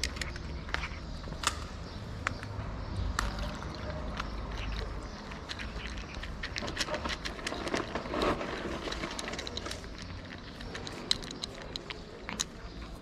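A kitten crunching dry cat kibble from a plastic dish, heard up close as irregular sharp crunches and clicks. A low rumble sits under the first few seconds.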